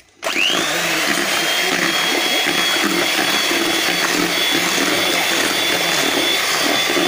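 Electric hand mixer switched on: its motor whines quickly up to speed and then runs steadily at high speed, beaters whisking cake batter in a bowl.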